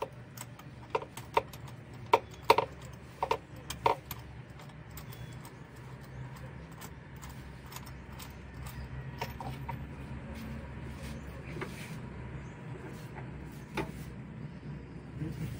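Metal tools or parts clinking and knocking about eight times in the first four seconds, as on engine repair work, then a steady low hum with light faint ticks.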